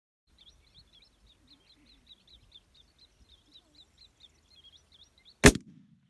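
A single rifle shot from a CZ 550 chambered in .300 Win Mag: one sharp, very loud crack about five and a half seconds in, followed by a short low rumbling echo. Before it, a bird chirps quickly and steadily, about four chirps a second.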